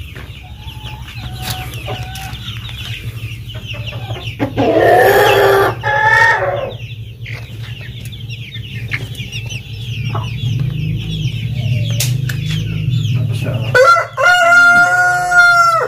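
Poultry: a rooster crows twice, once about four and a half seconds in and again in a long, held crow near the end. Chicks peep continually in between, over a steady low hum.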